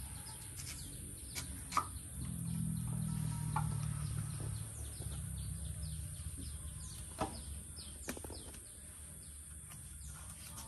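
Small birds chirping over and over, with a few sharp knocks and scrapes from a machete peeling a tuber. A low hum swells and fades about two to five seconds in.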